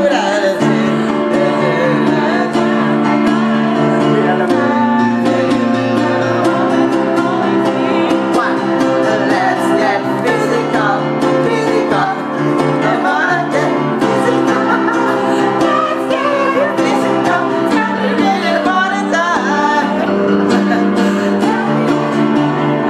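Amateur group singing a pop ballad, with steady instrumental chord accompaniment that changes every second or two.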